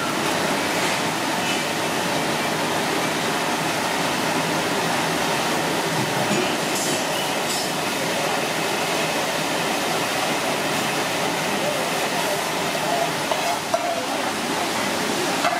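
Steady, loud noisy din with faint voices in it and a few small clicks.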